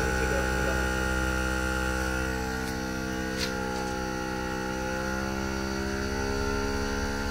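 Xiaomi 70mai portable 12 V air compressor running steadily as it inflates a collapsible space-saver spare tyre. Its note shifts slightly partway through as it pumps faster on the higher voltage once the car's engine is running.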